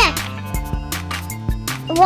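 Background music with held synth notes and a steady drum beat.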